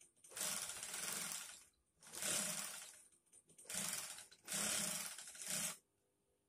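Industrial sewing machine driven by the motor under its table, stitching in four bursts of about a second each, stopping and starting again as the foot pedal is pressed and released.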